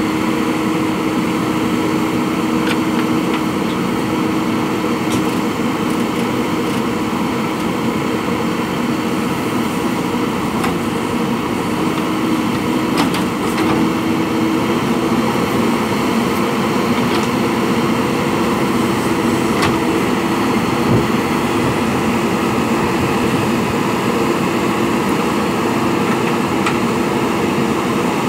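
JCB backhoe loader's diesel engine running steadily with a constant hum, with a few faint light clicks scattered through.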